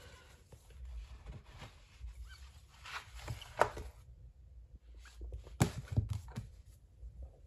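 Handling noise from a stack of large books being shifted and set down by hand: soft rustles and a few light knocks, the sharpest a cluster of knocks about five and a half to six and a half seconds in.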